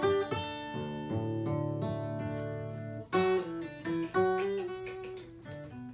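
Gibson acoustic guitar with a capo, strummed chords left to ring, with fresh strums about three and four seconds in: a sound check so the mixing desk levels can be balanced.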